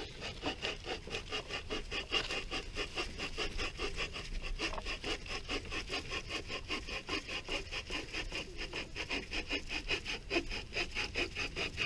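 Bahco Laplander folding pruning saw cutting through a dead branch in quick, even back-and-forth strokes, a steady rasping run that keeps going without a break. Its coated blade drags a little in the cut.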